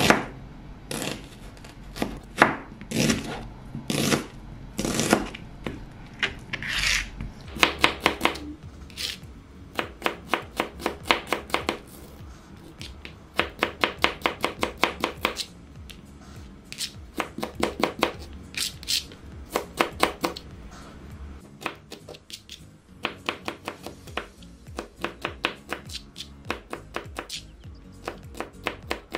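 Kitchen knife chopping onion and then garlic on a cutting board: slower single cuts at first, then runs of quick chops at about four a second with short pauses between.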